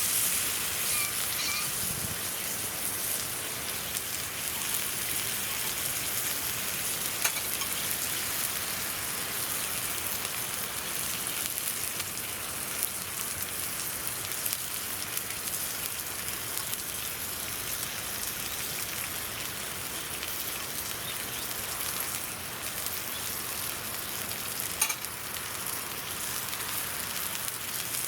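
Zabuton beef sizzling steadily over a campfire, with a couple of sharp pops, one about seven seconds in and one near the end.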